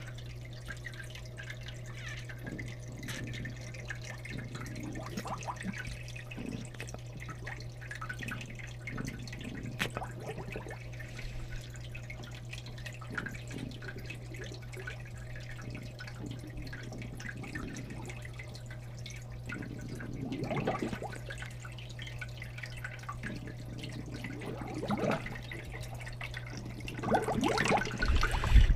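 Air bubbling and water dripping in an aquarium as air is pushed through a hose into toy submarines, over a steady low hum. The bubbling swells louder a few times in the last third.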